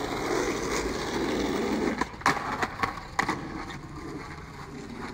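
Skateboard wheels rolling on asphalt with a steady rumble, then a quick run of sharp clacks from the board about two to three and a half seconds in, after which the rolling goes on more quietly.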